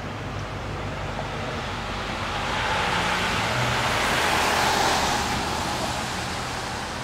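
A car passing on the street: a steady rush of tyre and engine noise swells to a peak about four to five seconds in, then fades, over a low hum of traffic.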